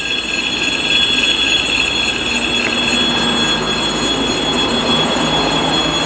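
A train passing on the track close by: a steady, loud rolling noise with a thin, high, steady wheel squeal over it.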